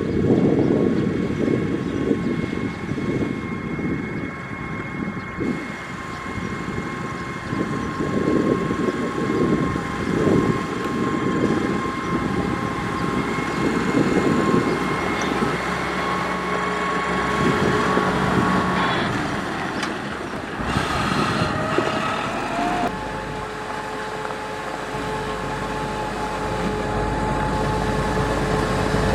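Caterpillar 140H motor grader's diesel engine running while grading gravel, with a steady whine over it and a short rising whine about twenty seconds in. Irregular gusty noise comes and goes through the first half.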